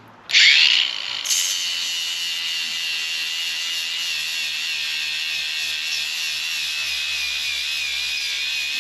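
Electric power sander starting suddenly and spinning up, then running steadily with a high whine that sags slightly in pitch. About a second in, a broad hiss joins it, as the pad sands the boat's fiberglass.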